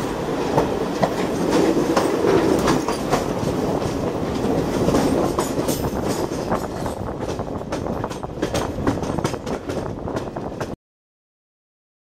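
Express passenger train running at speed, heard from a coach door: a steady rumble of the wheels with rapid clicks and clatter over the track. The sound cuts off abruptly to silence about a second before the end.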